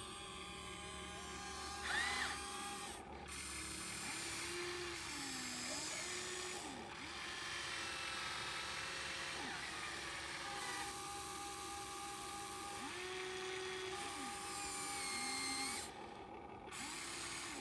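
Small electric motors of a radio-controlled model excavator whining as it works. The pitch rises and falls in short glides as the motors speed up and slow down. There is a louder burst about two seconds in.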